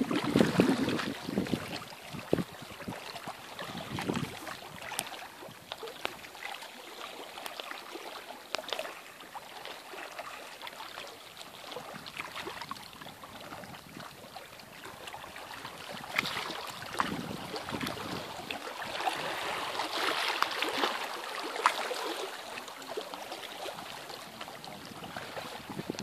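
Small waves lapping and splashing against the lake's rocky shoreline, a steady wash with small crackling splashes that swells louder twice in the second half. Wind buffets the microphone at the very start and dies away within about a second.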